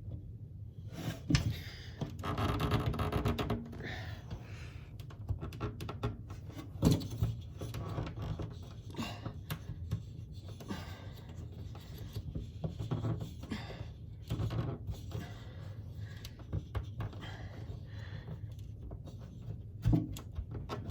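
Shower drain's threaded nut being tightened down onto the drain body from the underside of the pan: irregular scraping, clicks and knocks of handled plastic parts, with a louder rough scraping stretch about two seconds in.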